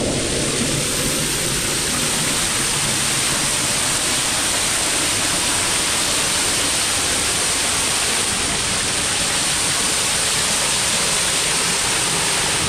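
A waterfall rushing: a loud, steady, even wash of falling water with no breaks.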